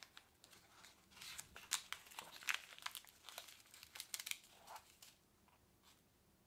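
Small clear plastic zip bag crinkling as it is opened and handled: a run of sharp crackles for about four seconds, dying away near the end.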